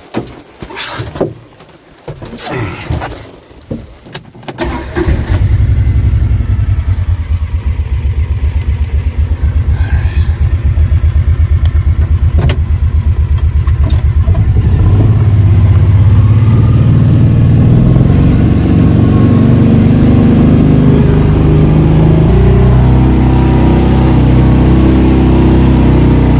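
A few clicks and crunches, then a utility vehicle's engine starts about five seconds in and runs with an even pulse. About 15 s in it revs up and stays at high revs.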